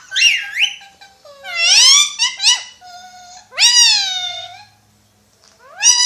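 Ringneck parakeet calling: four loud, pitched calls, each rising and then falling away, with a short pause just before the last.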